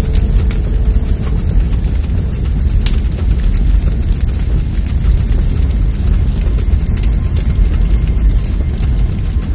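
A loud, steady low rumbling noise with faint scattered crackles or clicks over it.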